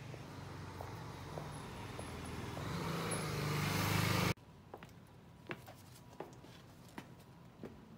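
A road vehicle approaching, its noise growing steadily louder for about four seconds and then cutting off abruptly. A quieter stretch with a few faint clicks follows.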